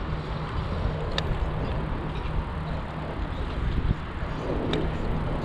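Wind buffeting a chest-mounted action camera's microphone as a bicycle rolls along a cracked concrete path, a steady low rumble with a couple of sharp ticks, about a second in and near the end.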